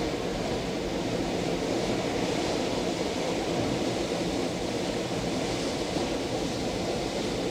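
Strong wind buffeting the microphone: a dense, steady low rumble, with a faint steady hum underneath.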